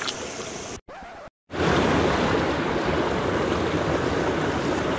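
Steady rushing of a mountain stream. The sound drops out briefly about a second in, then the rushing comes back louder and stays steady.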